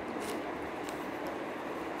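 Steady low background hum, with a few faint light ticks over it.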